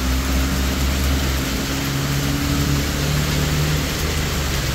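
A pickup truck's engine idling steadily at close range, under heavy rain falling on pavement.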